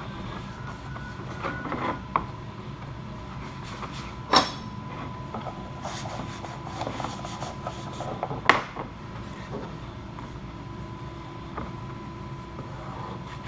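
Wiping down a primed plastic vehicle dashboard with an alcohol-dampened paper towel: light rubbing and small handling knocks, with two sharp knocks about four and eight and a half seconds in, over a steady hum.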